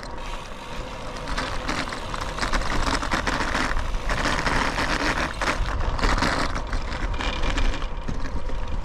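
Loaded touring bicycle rolling along a road, with steady tyre noise and a fine crackle, and wind rumbling on the microphone.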